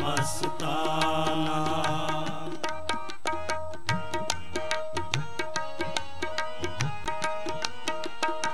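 Kirtan ensemble of harmoniums and tabla playing. Long held notes give way, about two and a half seconds in, to a quick instrumental harmonium melody over steady tabla strokes. The tabla's bass drum slides up in pitch a few times.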